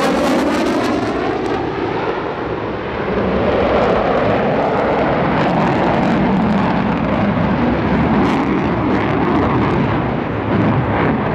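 F-15E Strike Eagle's twin Pratt & Whitney F100 turbofans in afterburner, a loud, steady jet roar. A falling, sweeping tone runs through it in the first second.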